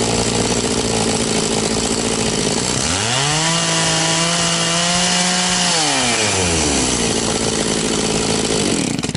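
Echo CS-670 two-stroke chainsaw running at idle while its carburetor is being tuned. It is revved up once to a held high speed for about three seconds, settles back to idle, and is shut off near the end.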